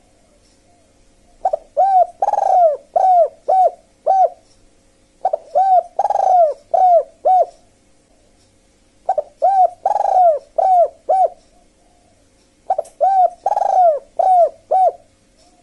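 Dove cooing in four repeated phrases a couple of seconds apart. Each phrase is about six short, quick coos, with one longer, louder coo third in line.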